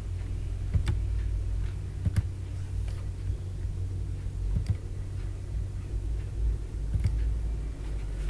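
A steady low rumble with a few sharp clicks, about four, spread out with several seconds between them.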